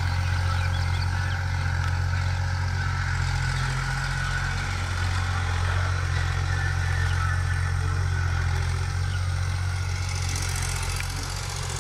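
An engine running steadily at idle: a low, even hum that keeps on without change.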